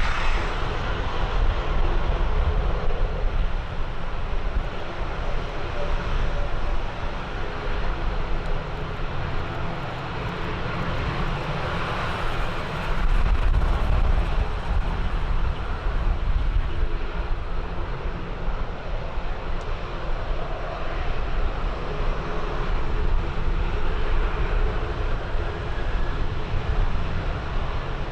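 Fixed-wing aircraft engine running steadily, with wind gusting and buffeting the microphone in a strong crosswind.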